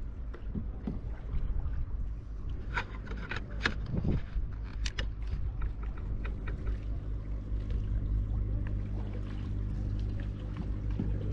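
Steady low hum of a boat's engine on the river, growing slightly louder toward the end, with a few sharp knocks about three to five seconds in.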